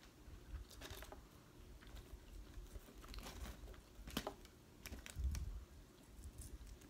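Faint eating sounds: soft crinkling of a paper food wrapper and scattered small clicks, with a low thump about five seconds in.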